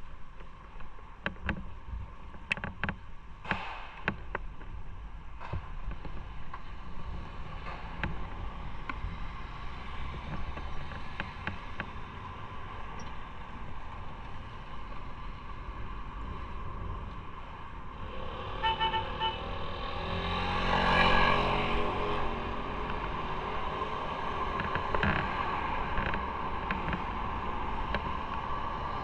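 Riding a motorcycle in road traffic: steady engine and road noise. A short run of quick beeps sounds about two-thirds of the way in, and a vehicle swells past close by a couple of seconds later.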